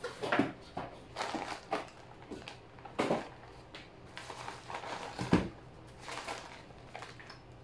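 Packaging rustling and crackling as a lightweight tripod is unpacked by hand, with a few louder handling knocks.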